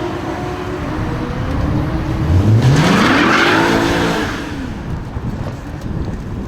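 BMW car engine revving hard: the revs climb sharply about two seconds in, with a loud rush of noise at the peak, then drop away.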